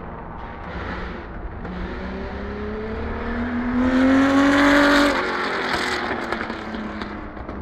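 Race car accelerating past at close range, its engine note rising steadily in pitch. It is loudest about four to five seconds in, then drops away sharply and carries on quieter and lower.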